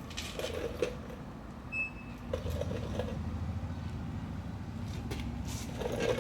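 Low steady background rumble with a few faint clicks and rustles, and a brief high squeak about two seconds in.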